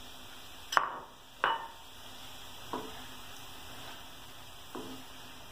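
Spatula stirring sugar into grated carrots in a frying pan, knocking against the pan four times, the first two loudest, over a faint steady sizzle of the cooking mixture.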